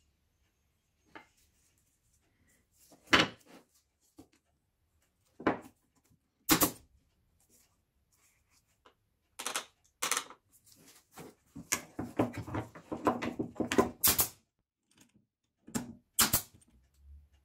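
Plywood parts being knocked together, set down on a workbench and clamped: a scatter of sharp wooden knocks, with a busier stretch of handling noise about two-thirds through. Near the end a cordless brad nailer fires twice into the glued plywood.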